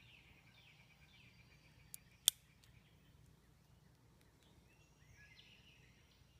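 A single sharp, short crack a little over two seconds in, from an RG 14 .22 revolver firing an Aguila Super Colibri round that has no powder and is driven by its primer alone, so the shot is very low noise. A fainter click comes just before it.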